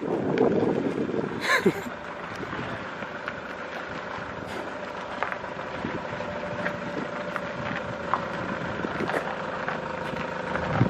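Vehicle engine idling steadily. It comes after a louder rush of noise in the first second or so and a short falling squeal.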